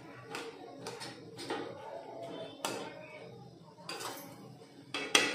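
Flat metal spatula stirring and scraping a thick egg-and-vegetable mixture in a metal kadai: irregular scrapes and taps of metal on metal, with a louder run of clatter near the end.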